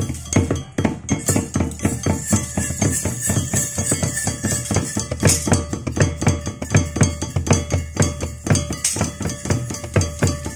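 Theyyam ritual percussion: drums and small brass hand cymbals playing a fast, steady rhythm, the cymbals ringing over the drum strokes.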